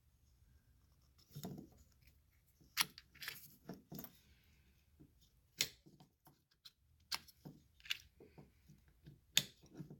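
Irregular sharp metallic clicks and clacks as the repaired jigsaw yoke and its plunger shaft are handled and worked by hand. The mechanism binds, which the repairer puts down to a burr on the shaft.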